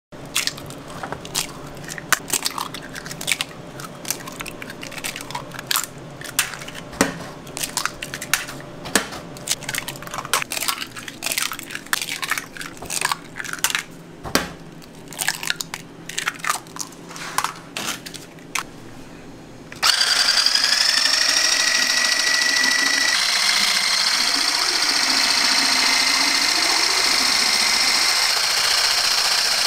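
A string of irregular sharp clicks and taps, typical of raw eggs being cracked one after another into a strainer. About twenty seconds in, an electric mixer with a whisk attachment starts up in the eggs and runs loudly and steadily, its whine rising briefly at the start and then holding.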